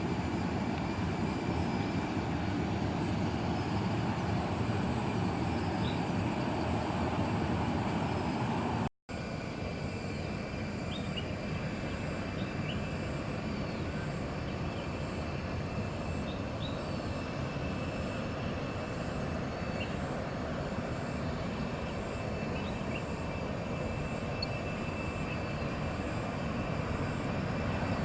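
Steady jet engine noise from an Airbus A330-300's Rolls-Royce Trent 700 turbofans during its takeoff, heard at a distance as an even rumble. The sound cuts out abruptly for a moment about nine seconds in, then carries on a little quieter.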